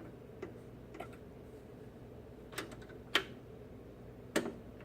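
A few light, sharp clicks and taps, the loudest about three and four and a half seconds in, as a record is set on a vintage turntable and the turntable is handled.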